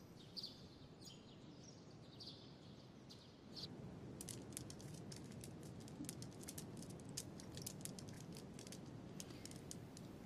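Faint bird chirps, then from about four seconds in a run of light, irregular clicks of prayer beads being fingered one by one.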